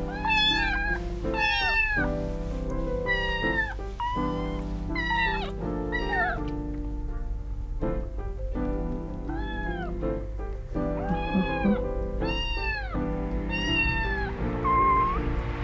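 Very young kittens mewing over and over, short high calls that rise and fall, about one a second, with a pause about seven to nine seconds in. Background music with steady held notes runs underneath.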